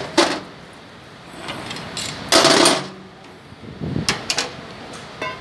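Sharp metal clicks and knocks, with a louder rattling scrape about two and a half seconds in, as a truck cab shock absorber is worked into its upper mount with a steel bar.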